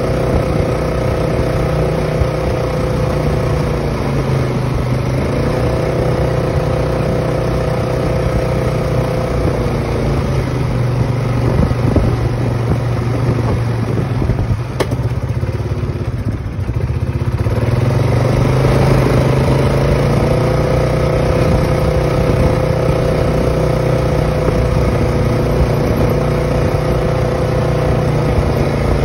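Polaris Sportsman ATV engine running while being ridden. Its pitch dips briefly about four seconds in, it eases off from about ten seconds in, and it picks up again about seventeen seconds in, then holds steady.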